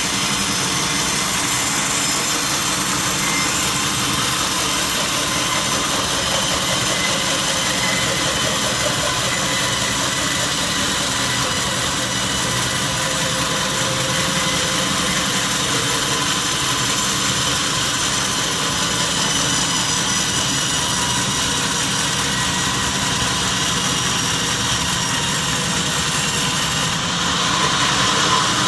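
Sawmill machinery running steadily, a constant mechanical drone with several steady tones that gets slightly louder and brighter near the end.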